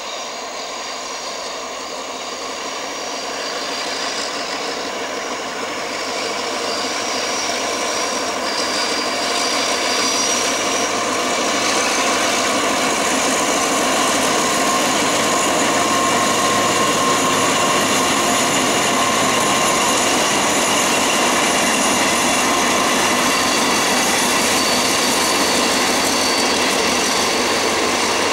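Two diesel locomotives pulling a passenger train, their engines running steadily. The sound grows louder over the first twelve seconds or so as the train approaches, then holds level.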